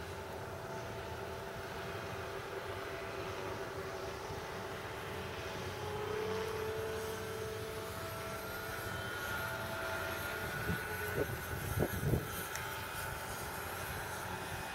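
Multiplex FunCub RC plane's brushless electric motor and propeller whining in flight, its tones shifting in pitch as it flies by, with one tone rising about halfway through. A few low thumps come near the end.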